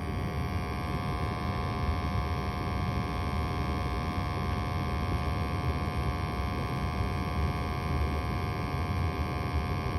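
A 21-year-old gas furnace running with its burners lit and blower motor on: a steady hum with a constant whine over it.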